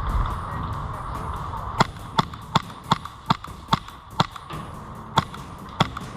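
Airsoft gun fired in single shots, sharp cracks about two or three a second starting a couple of seconds in, with a short pause near the end.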